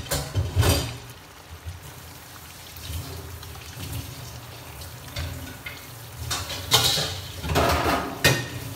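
Small goby fish deep-frying in oil in a nonstick pan, sizzling steadily, with louder bursts of crackling spatter near the start and again from about six seconds in.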